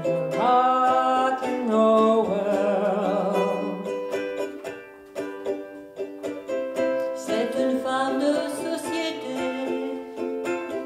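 Two ukuleles strumming chords in an instrumental passage between verses, with voices holding a long sung note with vibrato over the first few seconds; the strumming thins briefly near the middle, then comes back fuller.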